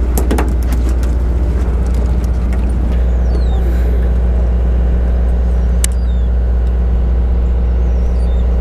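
Sportfishing boat's engine running steadily at idle, a low hum, with a sharp click about six seconds in.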